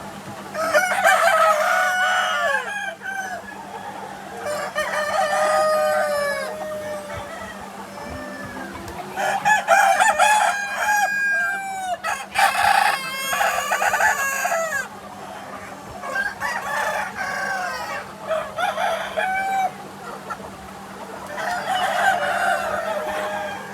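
Free-range village chickens: roosters crowing again and again, their calls overlapping, with hens clucking in between.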